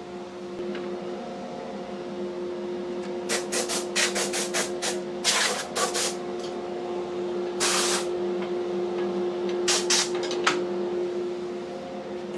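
Bandsaw running with a steady hum while the blade makes short cuts through a maple strip, slicing off small segments. The cutting comes in three bursts of rasping noise with clicks, the first and longest about a third of the way in, the others in the middle and near the end.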